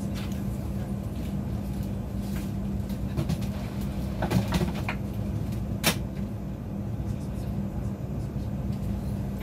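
Steady hum of an airliner cabin during boarding, with a few knocks around four seconds in and one sharp click near six seconds, bags being pushed into the overhead bins and a bin lid snapping shut. Faint murmur of passengers underneath.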